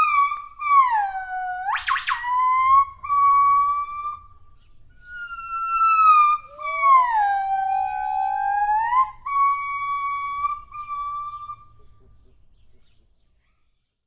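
Gibbon calling: two long, pure, whistle-like calls. Each falls in pitch, holds low, then rises and holds steady. The first has a brief sharp upward sweep about two seconds in, and the second breaks into short pieces before it fades out.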